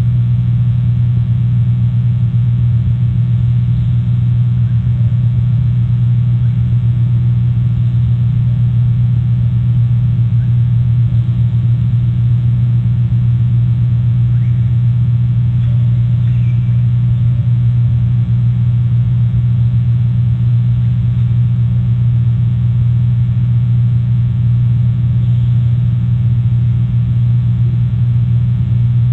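Steady low electrical hum at an unchanging level, with a few faint short chirps now and then.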